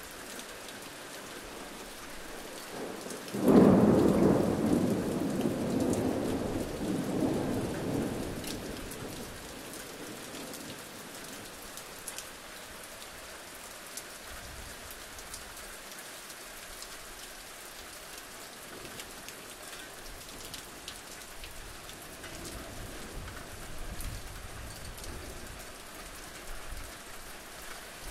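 Steady rainfall with a roll of thunder that breaks suddenly about three and a half seconds in and rumbles away over several seconds. It is a rain-and-thunder ambience recording used as the background track.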